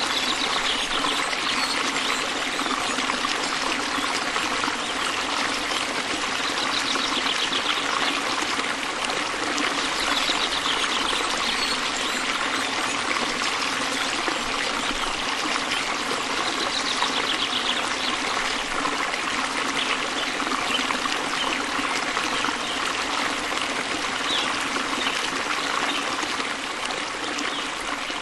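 Stream of water flowing and trickling steadily, with faint bird chirps now and then. The sound starts to fade near the end.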